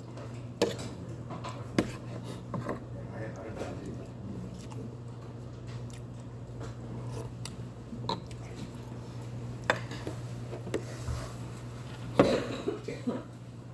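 Metal spoon and chopsticks clinking now and then against a hot pot and tableware, a few separate clinks over a steady low hum. Near the end comes a quick cluster of knocks as a pepper shaker is picked up.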